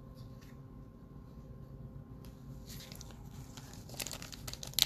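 Wrapper of an NBA Hoops Premium Stock trading card pack crinkling and tearing as it is opened. It starts a little after two seconds in and grows louder toward the end.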